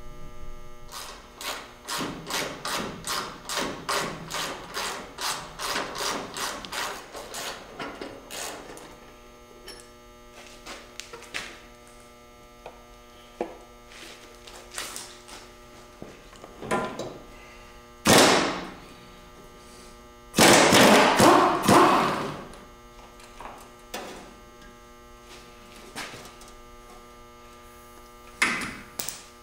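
Rhythmic knocking, about three strikes a second, for the first eight seconds or so. Then scattered clicks and short, loud hissing bursts from an air tool: one about eighteen seconds in, a longer one a couple of seconds later, and another near the end. A steady electrical hum runs underneath.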